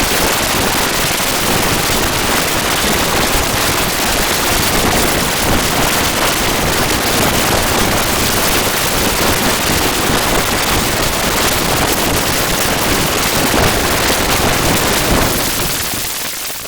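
Loud, dense crackling static noise, an even hiss filling every pitch with no tone or rhythm, fading out near the end.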